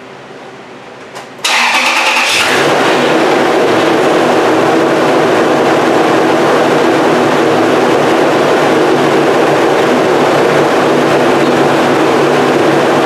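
Toyota Tundra engine cranked by the starter about a second and a half in, catching within about a second and then running steadily at idle. This is the first start after a steering rack replacement, with the power steering pump drawing fluid into a nearly empty new rack.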